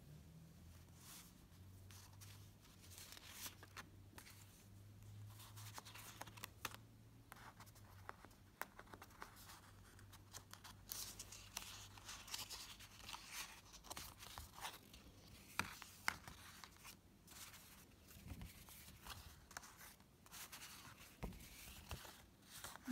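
Faint rustling and handling of card planner dividers as they are lifted, slid and flipped, with many small clicks and taps. A low steady hum sits underneath for about the first half, then fades.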